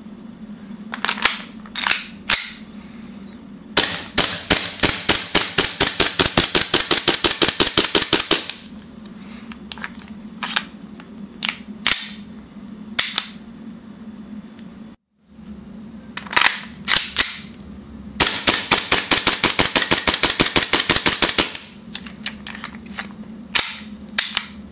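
WE P226 (F226 MK25) gas blowback airsoft pistol firing: a few single shots, then a fast string of shots lasting about four seconds, more single shots, and a second fast string, each shot a sharp crack with the slide's blowback.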